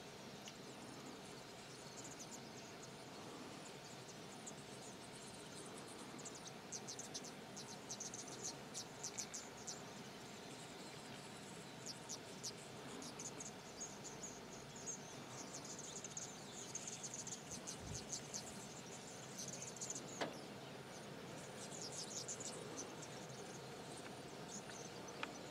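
Insects chirping in high-pitched trills that come and go over a quiet outdoor background, with a single sharp click about twenty seconds in.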